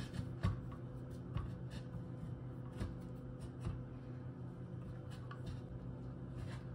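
A block of cheese being sliced on the slicing blade of a stainless steel box grater: short, soft scrapes at irregular intervals, about ten strokes in all, over a low steady hum.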